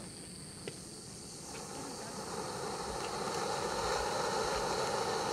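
Ground fountain firework spraying silver sparks: a sharp tick under a second in, then a rough hiss that builds over the next two seconds and runs steadily, over the steady chirring of crickets.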